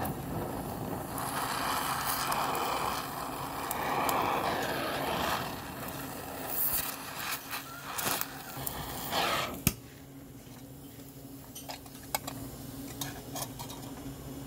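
Gas cutting torch hissing as its jet cuts through the steel hub of a wheelbarrow wheel, with crackling and popping of burning metal. About ten seconds in, the hiss stops, and a steady low hum and scattered clicks remain.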